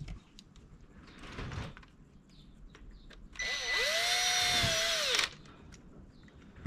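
Cordless drill driving a screw into the actuator housing: the motor spins up, runs steadily for about two seconds, then winds down.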